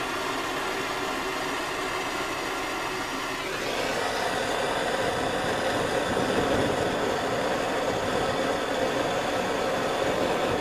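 Steady hiss of a gas torch flame and a burning homemade can stove, growing louder about four seconds in.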